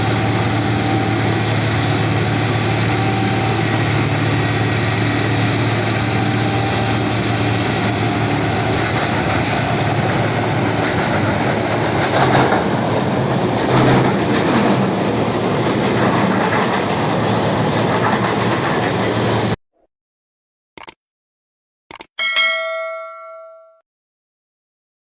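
Rail-mounted track-laying train running steadily on the rails, its engine humming under a loud mix of wheel and machinery noise. It cuts off abruptly near the end and gives way to a few short clicks and a ringing chime that dies away.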